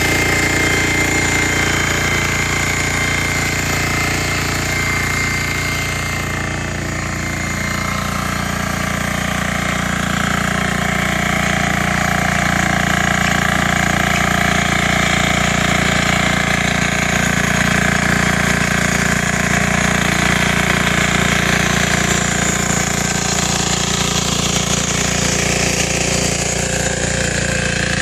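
Yağmur 320 walk-behind power tiller's engine running steadily with a rattling, hammering clatter, dipping slightly in level about seven seconds in.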